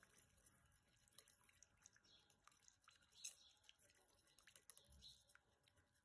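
Faint, irregular clicks and scrapes of a metal spoon stirring an oily chilli sauce in an enamel bowl, with one louder clink about three seconds in.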